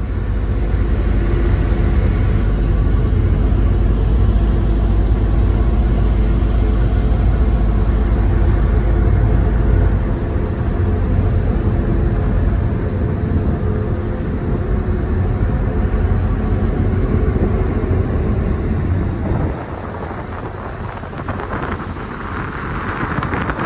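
Ferry's diesel engines running with a steady low rumble and a constant hum, heard from the open deck. The deep rumble eases about halfway through and drops again near the end, when a rushing hiss of wake water and wind comes up.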